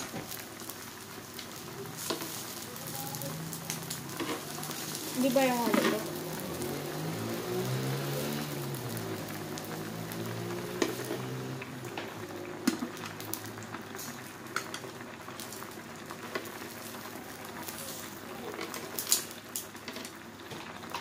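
Food frying on an electric grill plate: a steady sizzling hiss with a few light clicks.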